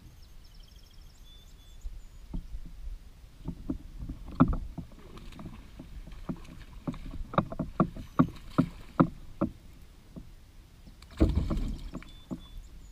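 Irregular knocks and taps on a plastic kayak as the standing angler shifts his feet and handles the rod and gear, with a brief louder bump near the end. A few high chirps sound in the first second or so.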